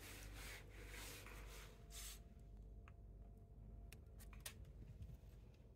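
Faint rustling and scratching of a feather toy as a cat bites and paws at it, followed by a few short clicks.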